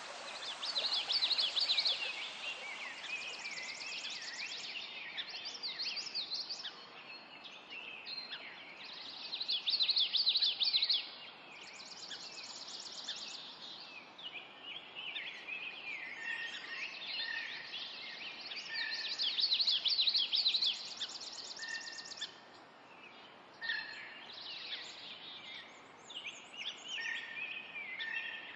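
Nature recording of several birds chirping, trilling and calling over a soft background hiss, with louder bursts of rapid chirping about every nine or ten seconds.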